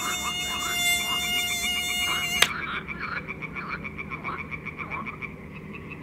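Frogs croaking in a chorus, with a fast, even trill running under them. For about the first two and a half seconds a held buzzy tone with many overtones sounds over the frogs, then cuts off with a sharp click.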